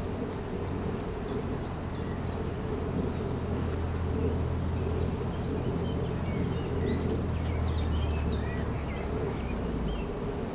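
Small birds chirping in many short high notes over a steady low hum.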